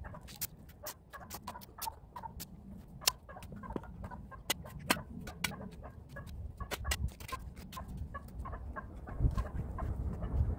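Chickens clucking: a quick run of short, sharp clucks, several a second.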